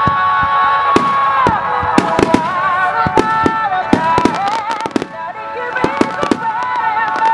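Aerial fireworks shells bursting in a finale barrage: a rapid, irregular string of sharp bangs. Music with long held melody notes plays underneath.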